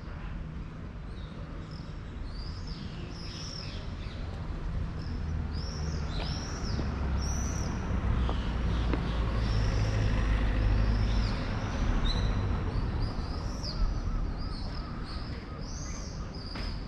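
Many small birds calling overhead, a steady stream of short high chirps. Under them runs a low rumble that grows louder in the middle and fades again.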